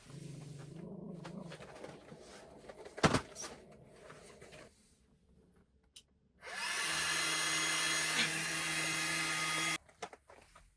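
A small electric motor, like a power tool or pump, runs loudly and steadily with a constant hum for about three seconds, then cuts off abruptly. Before it come quieter handling sounds and a single sharp knock.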